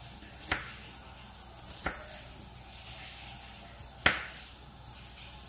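Kitchen knife cutting shallots on a plastic cutting board. There are three sharp knocks of the blade striking the board, about half a second, two seconds and four seconds in, and the last is the loudest. A few lighter ticks come in between.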